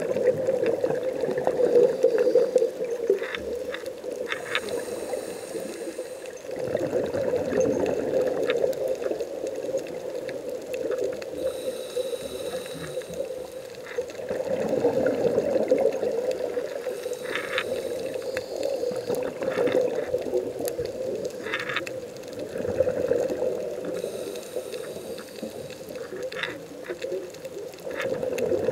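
Scuba diver breathing through a regulator underwater: a hiss on each inhalation and bubbling exhalations, repeating every several seconds, heard through the camera's underwater housing, with a few scattered clicks.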